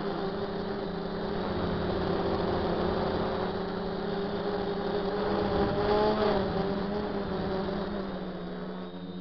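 Motors and propellers of a DJI F450 Flame Wheel quadcopter, heard from its onboard camera, droning steadily with several tones at once. The pitch briefly rises about six seconds in, then settles.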